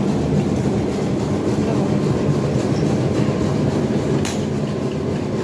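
Steady, fairly loud mechanical rumble and rattle of workshop machinery running, with a short sharp click about four seconds in.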